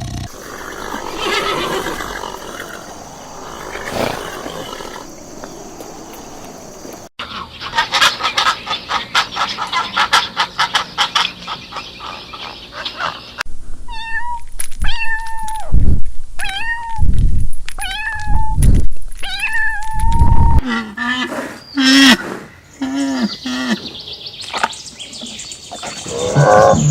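A run of different animal calls, one clip after another. In the middle a cat meows about six times, each meow a short call that dips and rises in pitch. Before it comes a rapid chatter of calls, and after it a lower-pitched animal calls several times.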